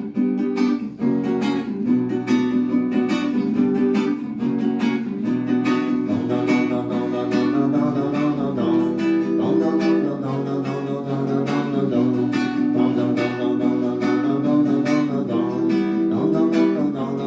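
Instrumental song intro: strummed guitar over a steady beat.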